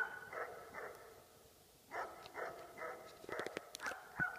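Dogs barking in quick volleys of several barks each, with a pause of about a second between volleys. A few sharp clicks come near the end.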